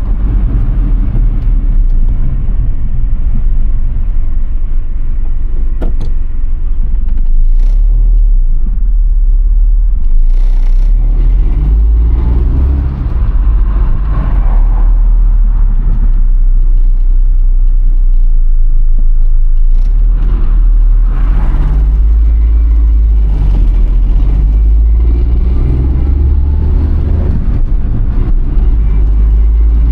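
Suzuki Alto Works HA11S being driven: its small three-cylinder turbo engine running under a strong low rumble of road noise, with the revs rising and falling a few times.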